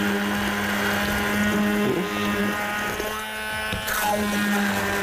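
Handheld immersion blender running steadily at one pitch, its blade blending an olive-oil, spice and herb marinade in a glass bowl.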